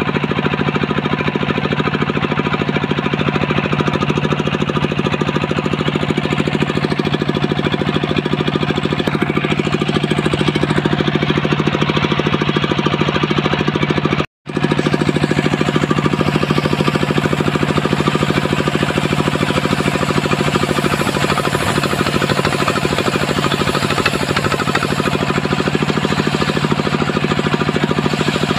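Engine-driven homemade circular sawmill rig running steadily, its motor giving a rapid, even knocking beat under the saw. The sound cuts out for a split second about halfway through, then resumes unchanged.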